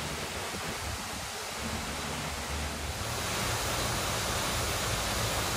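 Steady rushing outdoor noise, like wind buffeting the microphone, which grows louder and brighter about three seconds in.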